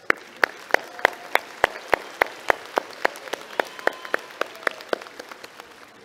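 Audience applauding, with one person's hand claps close to the microphone standing out as sharp, even claps about three a second, dying away near the end.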